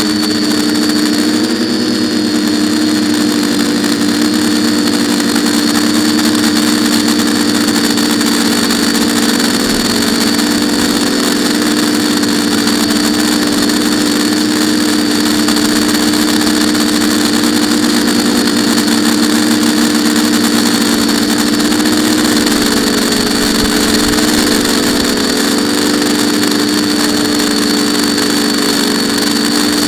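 FPV quadcopter's brushless electric motors and propellers running at a steady speed, heard up close from on the frame: a loud, even buzz with a high whine on top.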